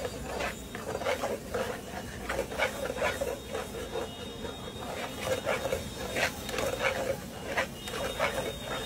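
Metal spatula scraping and clattering against a wok as scrambled eggs (egg bhurji) are stirred and chopped, in quick irregular strokes, a few each second.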